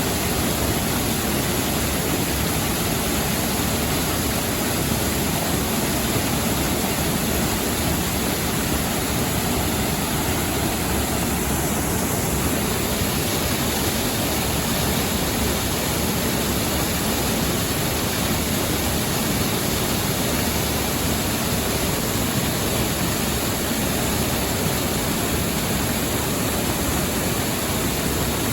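Mountain stream rushing over rocks close by: a steady, unbroken wash of water noise.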